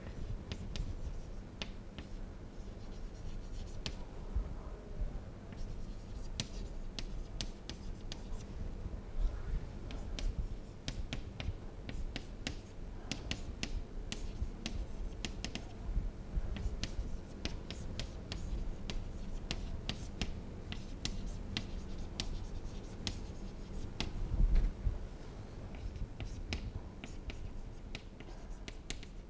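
Chalk writing on a chalkboard: scratchy strokes and sharp little taps as words are written, with a low bump a few seconds before the end.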